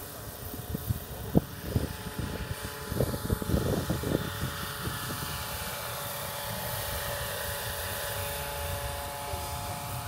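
Radio-controlled 500-size scale Seahawk helicopter's rotors and motor, a steady whine made of several tones. Wind buffets the microphone in uneven gusts during the first half.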